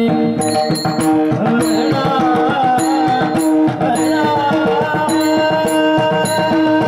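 Warkari bhajan music: a man's voice singing a devotional tune over held drone notes, with drum strokes and small hand cymbals keeping the beat.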